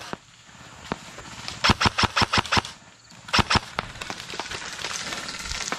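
Airsoft guns firing in quick bursts: a rapid string of about seven shots around two seconds in, then two or three more about a second later, followed by a steady hiss.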